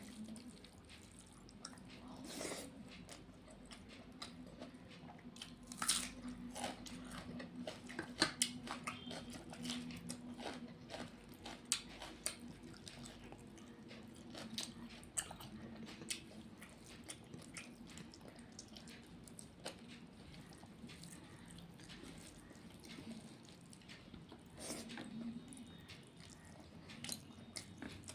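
A person eating a meal of rice and fish-head curries: chewing and mouth sounds with many short, sharp crunches and clicks scattered throughout, over a low steady hum.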